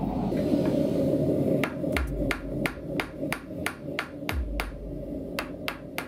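Gas forge burner running with a steady rushing noise, then, about a second and a half in, a hammer striking a small bar of hot carbon steel on a small anvil, about three sharp blows a second.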